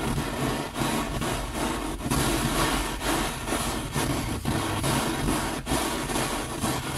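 Hand-held gas torch burning with a steady, rough rushing noise and a slight flutter as its flame heats a coin to anneal it, softening the metal so it can be worked.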